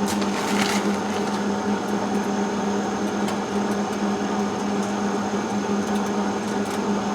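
Hobart MIG welder running with a steady, even hum from its wire-feed motor and cooling fan, with a few light clicks in the first second.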